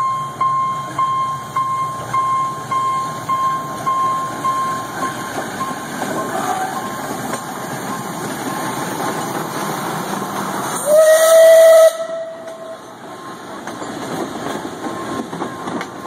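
A steam locomotive's whistle gives one short, loud blast about a second long, about eleven seconds in, over a steady background of steam hiss and bystanders. In the first few seconds a bell dings about twice a second, then fades.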